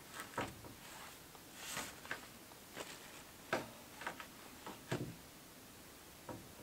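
Irregular light knocks, taps and clicks of plywood and boards being handled by hand, with a brief rustle; the sharpest knocks come a little past halfway.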